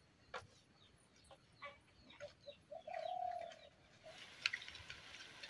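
Birds calling: short chirps and a cooing call about three seconds in. From about four seconds in, a steady hiss with a few pops as fish curry boils in a metal pan over a wood fire.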